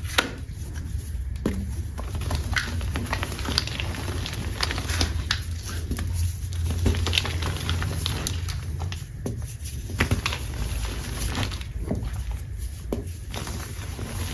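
Soft, dusty chalk being crumbled by hand: irregular crisp crunches and crackles, with a steady low hum underneath.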